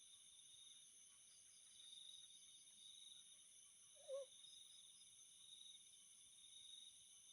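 Crickets and other night insects trilling steadily in several high pitches. About four seconds in, one short, low call stands out briefly.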